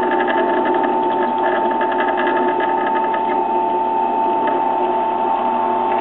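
Benchtop drill press motor running with a steady whine as the bit is fed slowly into the steel AR-15 barrel to drill the gas port. A fast rhythmic ticking rides over the whine for the first three seconds or so.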